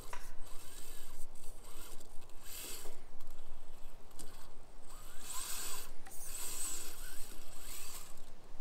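Micro RC rock crawler driving over rock: its small electric motor and gears whine in short bursts that rise and fall with the throttle, with tires scrabbling and scraping on the rock in between.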